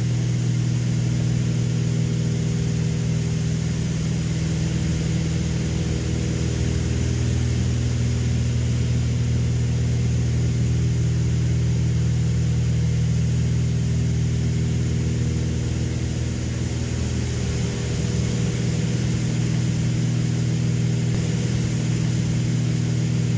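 Twin six-cylinder piston engines and propellers of a Beechcraft Baron B55 droning steadily in flight, heard inside the cabin as a constant low hum with several even tones.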